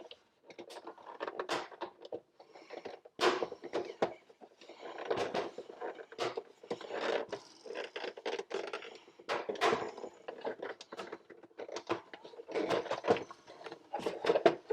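Plastic housing of a Pentair Kreepy Krauly Racer pool cleaner being worked apart by hand. Irregular clicks, knocks and scrapes of plastic come as the catch is pinched and the top cover is pried loose.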